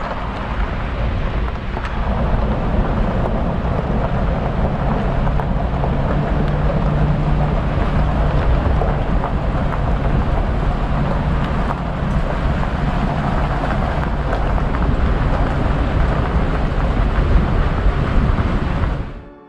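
Pickup truck driving along a gravel road: a steady engine and road rumble, with wind buffeting the microphone. The sound cuts off suddenly near the end.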